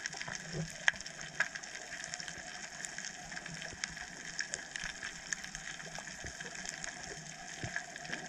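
Underwater ambience over a coral reef: a steady hiss with scattered sharp clicks and crackles throughout.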